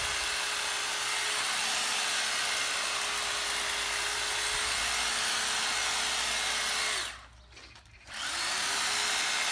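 Corded electric hedge trimmer running steadily as its blades cut along a dense clipped hedge. About seven seconds in it is released and winds down, falls silent for about a second, then starts up again with a rising whine.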